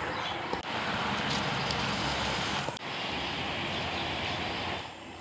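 Steady outdoor rushing noise, like passing traffic or wind, that drops off a little near the end.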